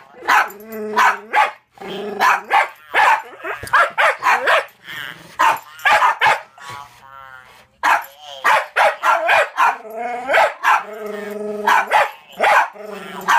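Jack Russell terrier barking over and over in quick runs of short, sharp barks, with a lull about halfway through. The barking is aimed at a talking Furby toy.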